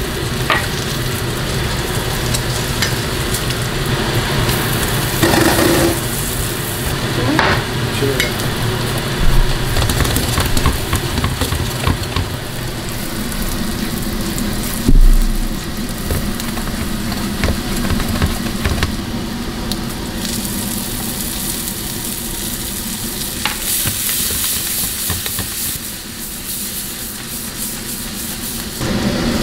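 Diced onion sizzling in fat in a stainless steel frying pan, stirred and scraped with a silicone spatula. Two brief knocks stand out, about nine and fifteen seconds in.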